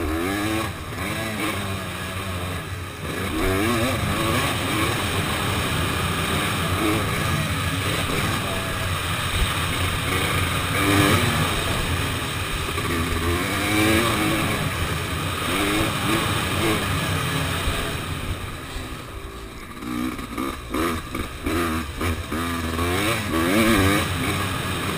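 Honda motocross bike's engine heard from onboard while riding a dirt track, its pitch rising and falling again and again as it revs up through the gears and backs off. About three quarters of the way through, the throttle is snapped on and off several times in quick succession.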